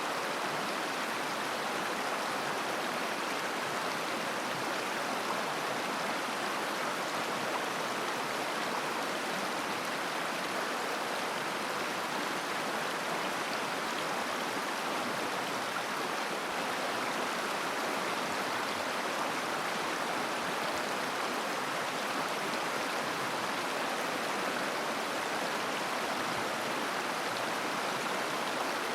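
A mountain river flowing, a steady rush and babble of water over stones with no change in level.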